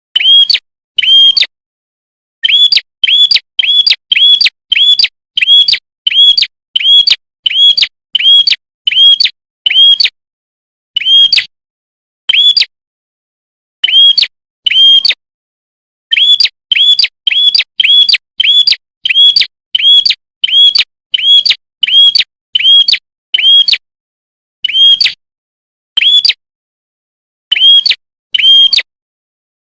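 A prinia, the 'prenjak kepala merah' (red-headed prinia) of Indonesian bird-keepers, singing loud, shrill, identical short notes over and over, about one and a half a second, broken by brief pauses of about a second several times.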